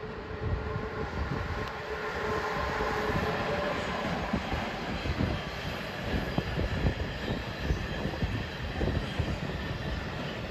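Freight train of double-deck car-carrier wagons, hauled by a Bombardier TRAXX BR 185 electric locomotive, rolling past with a steady rumble and clatter of wheels on rail. A faint steady whine in the first few seconds fades as the locomotive moves away.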